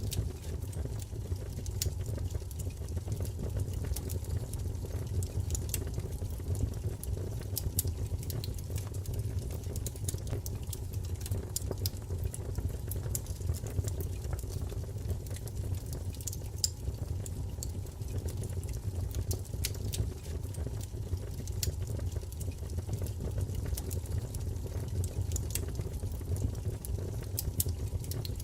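Wood fire crackling, with frequent short sharp pops and snaps over a steady low rumble of the burning.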